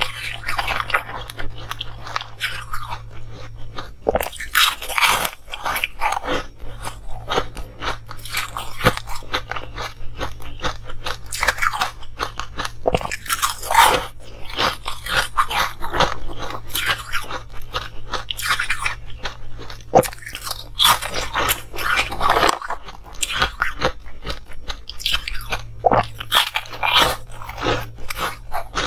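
Crunching and chewing of frosty ice blocks: a run of crisp, irregular bites and crunches, one after another, over a faint steady low hum.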